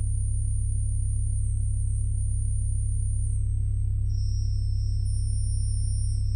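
Pipe organ holding a dense cluster of deep bass notes, steady and unchanging, with thin, very high sustained tones above it that shift slightly in pitch. A second high tone enters about two-thirds of the way through.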